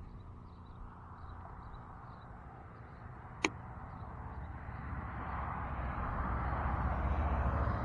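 Wind buffeting the action camera's microphone, building up over the second half, with one sharp click a few seconds in.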